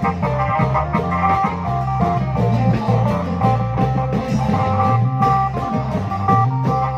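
Thai klong yao long-drum band music: a driving beat of drums and percussion under a plucked-string melody of short stepping notes.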